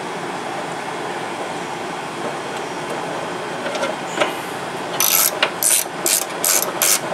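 Socket ratchet wrench clicking in quick repeated strokes, about three a second, starting about five seconds in, as it tightens the 8 mm screw that fastens a car window regulator to the glass. Before that, only a steady hiss with a few faint clicks.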